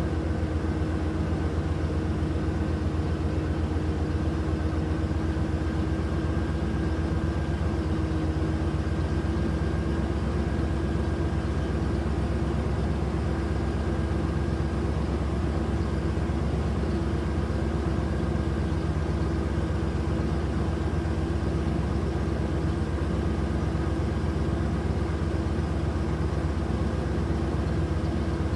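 Pickup truck engine idling steadily at an even pitch.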